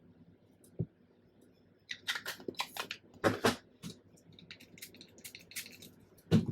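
Craft materials being handled on a table: scattered rustles and light taps of paper and card, with a couple of soft knocks, the loudest near the end.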